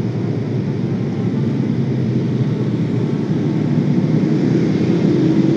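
Motorcycle engine running steadily under way, mixed with road and wind rumble, growing a little louder towards the end.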